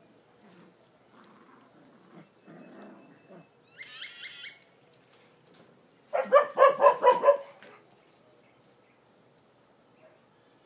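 A dog barking: a quick run of about seven loud barks about six seconds in, with a shorter high-pitched yelp a couple of seconds before.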